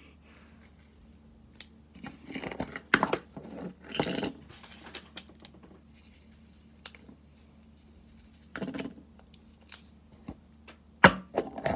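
Handling of packaging: a few short bursts of rustling and crinkling a few seconds apart, with a sharp click near the end.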